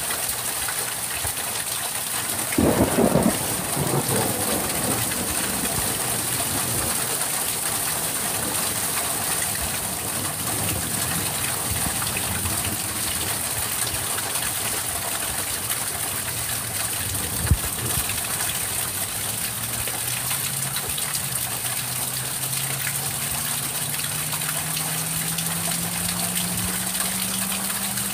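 Steady rain during a thunderstorm, with a short loud burst of thunder about three seconds in and a single sharp click later on. Through the second half a low hum rises slowly in pitch.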